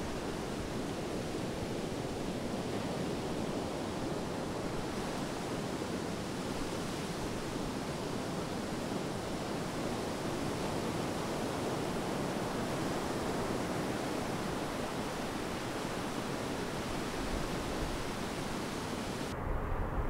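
Steady rushing noise of sea surf and wind, an even hiss with no distinct events. Shortly before the end the sound turns suddenly duller as its upper hiss drops away.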